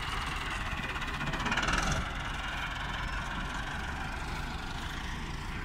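Massey Ferguson 385 tractor's diesel engine running steadily at idle, with a slight swell about two seconds in.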